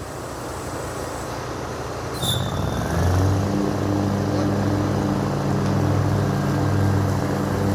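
Lawn mower engine running with a steady drone, quieter at first and coming back louder about three seconds in. A brief high squeak sounds just before it swells.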